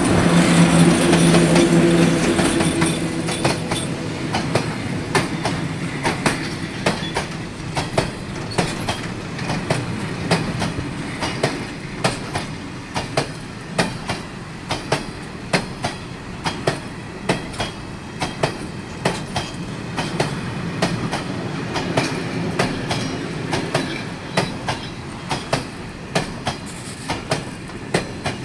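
A freight train passing close by. The locomotive's steady hum is loudest in the first couple of seconds, then the long line of loaded container wagons rolls past with a regular clickety-clack of wheels over the rail joints.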